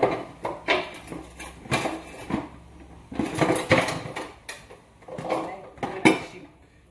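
Kitchen dishes and cutlery clattering: about a dozen irregular knocks and clinks of utensils against dishes, the loudest near the end.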